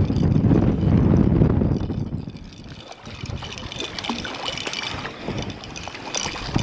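Wind rumbling on the microphone for the first two seconds, then a hooked fish splashing at the water's surface as it is brought alongside and scooped into a landing net, with scattered splashes in the last few seconds.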